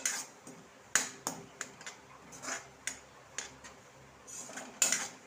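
Metal spoon scraping and clinking against a metal kadai while stirring a thick masala paste: irregular scrapes and taps, a few a second, the sharpest about a second in and near the end.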